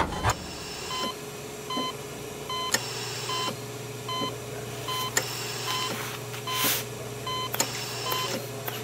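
A short electronic beep repeating steadily, about once every 0.8 seconds, over a low steady hum and scattered clicks.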